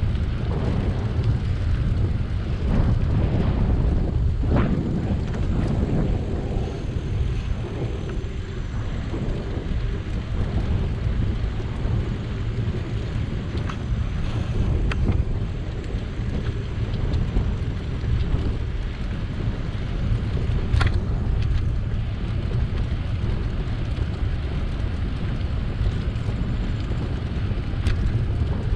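Riding noise from a moving bicycle: steady low wind rumble on the microphone with tyre and road noise underneath, broken by a few sharp clicks or rattles, one early on, one about two-thirds through and one near the end.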